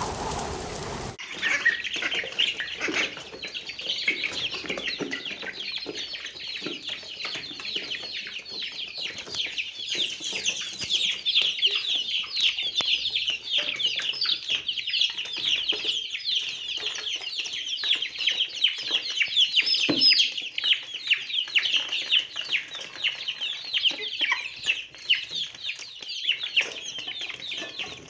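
A crowd of domestic ducklings peeping without pause: many short, shrill peeps overlapping, from ducklings mobbing a dish of raw meat scraps. It opens with about a second of rain-like hiss before the peeping starts.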